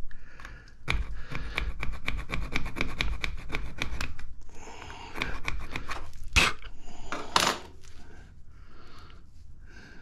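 Pointed metal pick scraped rapidly back and forth over a magnetron cathode part for about three seconds: a scratch test through the coating to see whether the metal under it is copper or steel. Two sharp clicks follow a few seconds later, then softer handling of the part.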